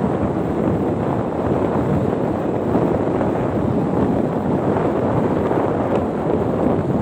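Steady wind rushing over the microphone of a phone carried on a moving motor scooter, mixed with the scooter's running noise.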